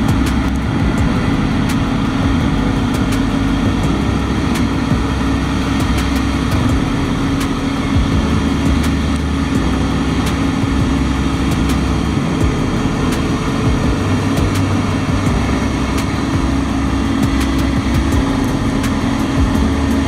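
Case IH combine harvester running steadily as it cuts and threshes wheat: a loud, unbroken low mechanical drone.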